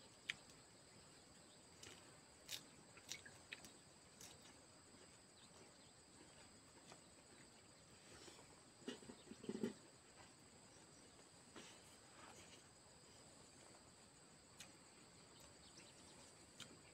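Near silence under a faint, steady high-pitched insect drone. A few soft clicks and a short run of smacking sounds about nine seconds in come from eating rice by hand off banana leaves.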